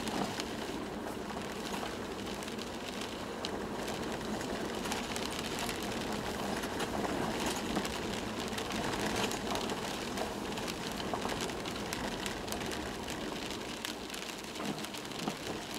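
Toyota Land Cruiser 120 driving on an unpaved forest road, heard from inside the cabin: a steady rumble of tyres and body noise with many small crackles and rattles.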